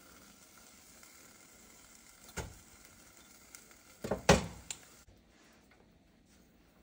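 Granulated sugar pouring from a glass measuring cup into a pot, a soft hiss. There is a sharp knock about two and a half seconds in and a louder cluster of knocks a little after four seconds.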